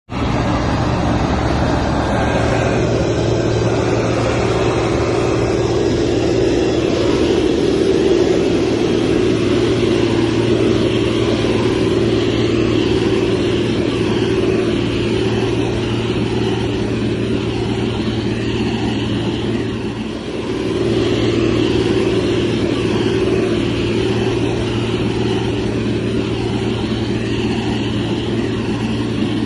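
Motor grader's diesel engine running steadily under working load, with a brief dip in engine sound about two-thirds of the way through before it picks up again.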